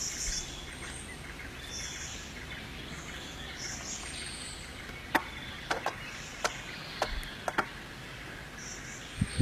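Forest ambience with short, high bird chirps repeating about once a second. A handful of sharp clicks come in the second half.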